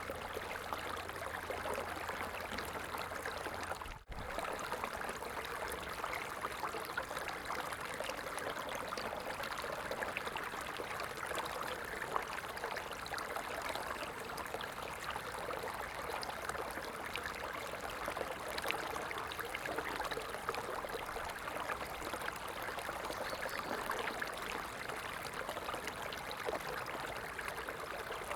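Running water flowing steadily, a continuous splashing rush, with a momentary dropout about four seconds in.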